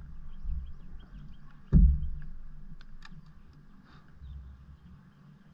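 A single loud thump on the fishing boat's deck about two seconds in, with a couple of lighter knocks a second later, over a low rumble. Faint, rapid bird chirps run in the background.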